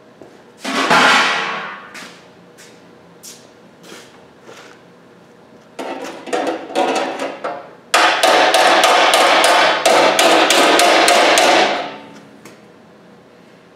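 Body hammer striking 18-gauge sheet steel held on a dolly, smoothing out the hammer marks in a hand-formed rust repair panel. One loud ringing blow about a second in, a few light taps, then a fast run of ringing blows, about five a second, for some four seconds before stopping.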